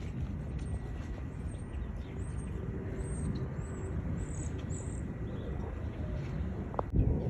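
Outdoor ambience: a steady low rumble, with a run of short, high bird chirps through the middle and a single sharp knock near the end.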